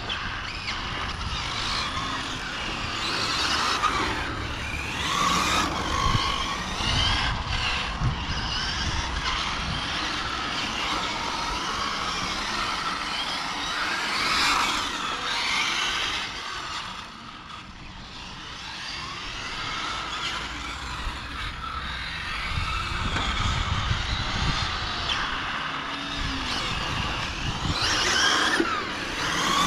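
Several radio-controlled model cars driving around a track, the pitch of their motors rising and falling over and over as they speed up and slow down.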